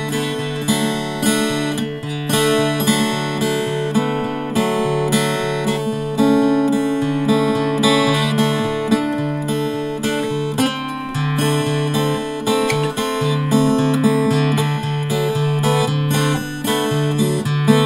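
Background music: acoustic guitar played with plucked and strummed chords at a steady pace.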